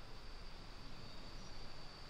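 Forest ambience: a steady, high-pitched insect drone over a faint background hiss, with a brief higher note about halfway through.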